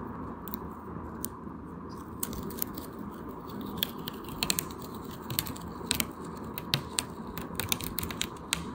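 Paper label being peeled off the textured hard cover of a spiral-bound Canson mixed media pad: a run of small crackling clicks and ticks as the adhesive lets go, coming thicker from about halfway through.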